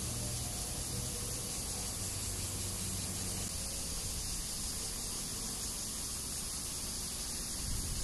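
Summer cicada chorus: a steady, unbroken high-pitched buzz, with a low rumble underneath that eases a few seconds in.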